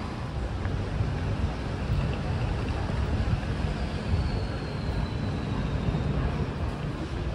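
Wind rumbling on the microphone over the general hubbub of a busy pedestrian street. A faint high tone glides slightly downward about halfway through.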